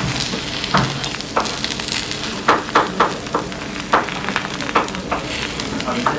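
Spicy fried rice sizzling on a hot pan while a metal spoon scoops and stirs it, with a string of short clicks and scrapes from the spoon against the pan.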